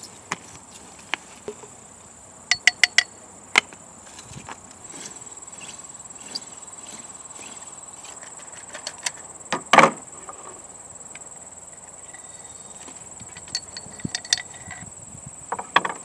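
Hand-cranked hay probe being bored into a round hay bale: scattered clicks and scrapes, one louder knock about ten seconds in, then a run of quick taps near the end as the core sample is knocked out of the tube. A steady high-pitched insect drone runs underneath.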